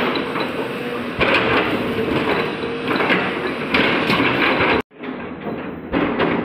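JCB tracked excavator running as it loads sand into an open steel railway wagon: a loud, rough rushing and scraping that swells and eases, over a low engine hum. The sound drops out for a moment nearly five seconds in.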